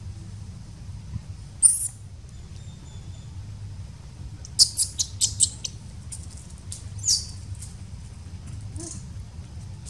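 Newborn macaque squeaking: short, high-pitched squeals, one about two seconds in, a quick run of five or six around five seconds, then single squeaks near seven and nine seconds, over a steady low hum.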